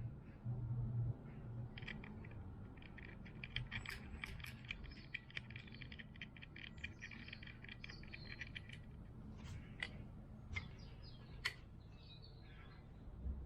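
A quick run of light clicks and ticks, several a second, from about three to nine seconds in, then a few single sharp ticks, over a low steady hum.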